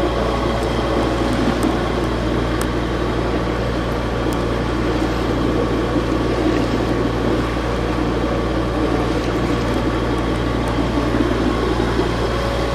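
A sailboat's engine running steadily under way, a constant drone with steady low tones.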